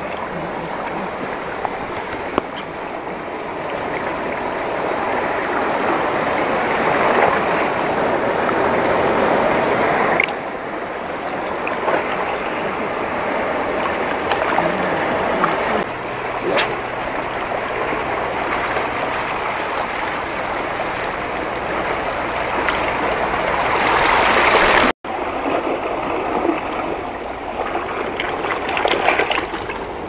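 Seawater washing over and trickling off shore rocks, a continuous rushing that swells twice and breaks off sharply about ten seconds in and again near twenty-five seconds.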